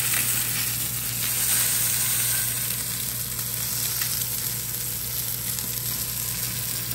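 Swordfish steak frying in oil in a cast-iron skillet: a steady sizzle.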